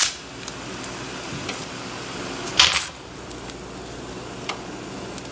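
A bundle of dry linguine snapped by hand: one loud, crackling snap about two and a half seconds in, with a few lighter clicks before and after, over the steady hiss of a pot at a rolling boil.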